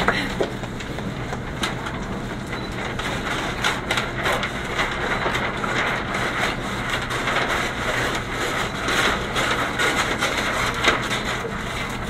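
A large paper sheet rustling and crinkling as it is handled and cut with scissors, with many small scattered crackles.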